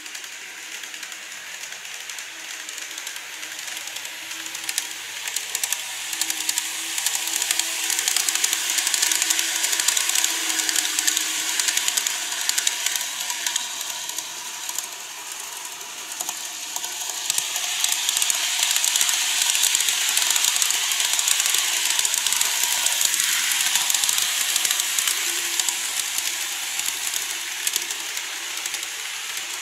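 Model trains running on the layout track: a dense, steady run of fine clicks from the wheels on the rails with a faint low hum, swelling louder about a third of the way in and again past the middle as trains pass.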